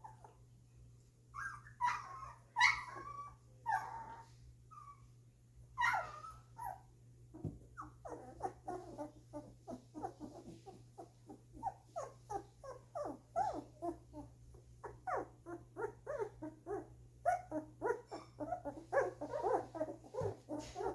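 Two-week-old golden retriever puppies whimpering and squeaking: a few louder, longer cries, then a long run of short high squeaks, several a second.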